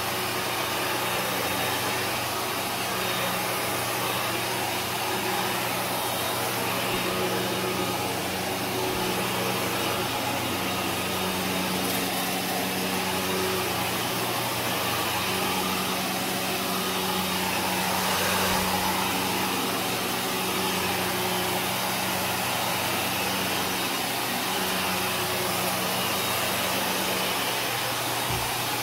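Kenmore Progressive upright vacuum cleaner running steadily as it is pushed back and forth over carpet, its motor humming under a constant rush of suction. It is sucking up debris from the carpet.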